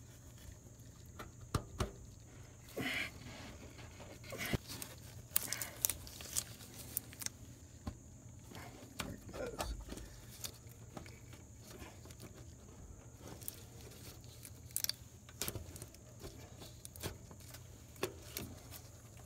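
Oil filter pliers and gloved hands working a spin-on oil filter loose: scattered light clicks, knocks and short scrapes of metal jaws on the filter canister, with rustling of the gloves.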